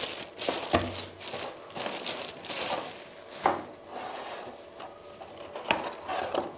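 Packaging and accessories being handled: rustling and rubbing with a few sharp light knocks, the loudest about three and a half seconds in and near the end.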